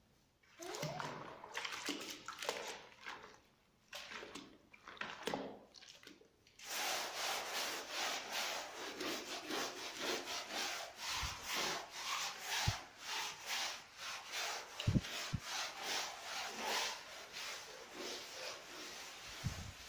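Long-handled scrubbing brush scouring a soapy plastic floor mat in back-and-forth strokes. It is intermittent at first, then steady and rhythmic from about six seconds in, at roughly two to three strokes a second.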